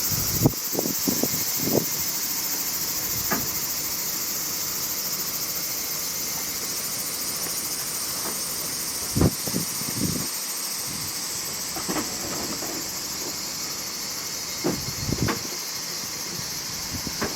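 A steady high-pitched hiss, with scattered light knocks and taps now and then.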